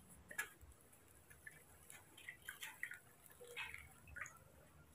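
Near silence: room tone with a few faint, scattered ticks.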